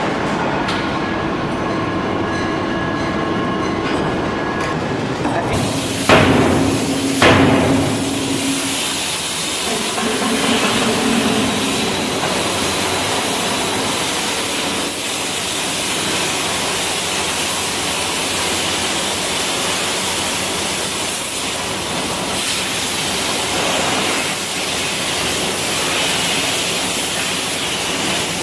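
Heavy forging press working hot steel: a steady machine hum, then two heavy ringing blows about a second apart some six seconds in, followed by a steady loud hissing rush.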